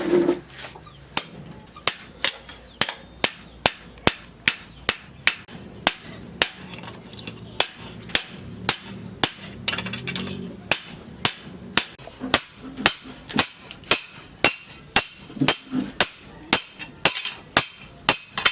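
Hand hammer striking steel on an anvil while forging a cleaver blade, a steady run of ringing blows about two a second.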